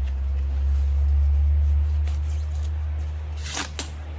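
Packaging rustling as a chrome air cleaner cover is unwrapped and handled. There are a few light rustles about two seconds in and a louder double crinkle near the end, over a steady low hum.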